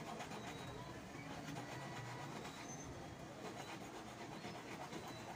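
Hand file rasping back and forth against the edge of a white gold ring, over a steady background rumble.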